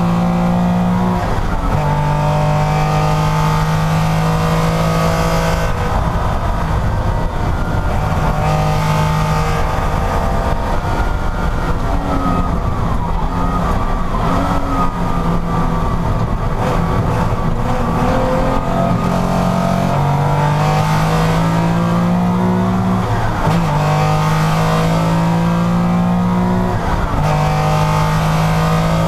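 Porsche racing car engine running hard under race conditions, its pitch climbing and then dropping sharply at each gear change, several times.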